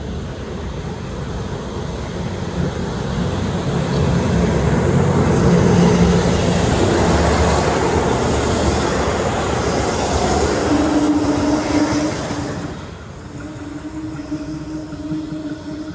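KIHA 183 diesel multiple unit passing by. Its engine and wheel noise swells over the first few seconds, holds at its loudest, then falls away about 12 seconds in, leaving a steady low hum.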